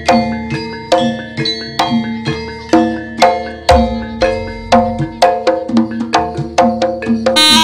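Gamelan music for a jaranan dance: struck metal gamelan instruments ringing in a steady rhythm of about two to three strokes a second, with a deep gong stroke about halfway through. Near the end a loud reedy wind instrument comes in.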